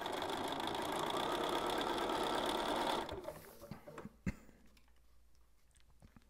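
Bernina 570 QE sewing machine stitching steadily with a very short stitch length through fabric and its foundation paper, running for about three seconds and then stopping. A single sharp click follows about a second later.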